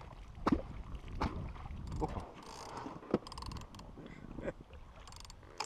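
Fishing reel on a rod clicking in two short runs of rapid ticks as line is paid out and wound, among a few sharp knocks and short squeaks.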